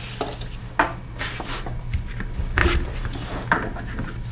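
Loose metal mower parts and bolts knocking and clinking as they are handled and set down, several separate knocks a second or so apart.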